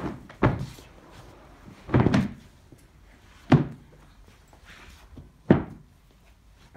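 Large handmade silk carpets slapping down flat onto the floor as they are flipped over one after another: four dull thuds about one and a half to two seconds apart, the second one doubled.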